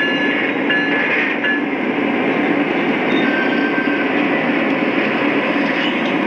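Lionel O-gauge model diesel locomotives running on a layout: a steady diesel engine rumble from their onboard sound systems, mixed with the wheels rolling on the track.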